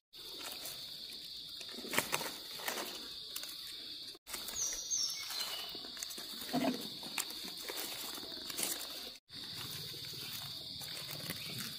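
Steady high-pitched drone of forest insects, with irregular rustling and crunching noises over it. The drone drops out briefly twice.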